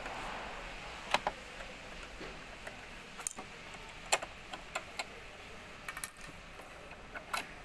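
Small, sharp plastic clicks and taps, spread irregularly, as the clear drop-in bobbin cover of a Brother sewing machine is unclipped and lifted off and the plastic bobbin is handled over the bobbin case.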